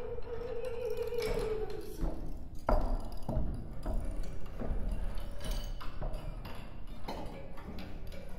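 Sparse experimental music: a held, slightly wavering tone dies away about two seconds in. Scattered taps, knocks and short pings follow, a few seconds apart.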